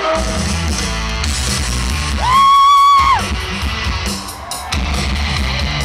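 Rock music with electric guitar over heavy bass. About two seconds in, a loud held high note sounds for about a second, then slides down.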